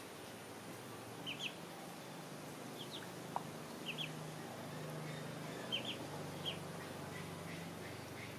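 Ducklings peeping: short high chirps, often two in quick succession, every second or so, over a faint low hum.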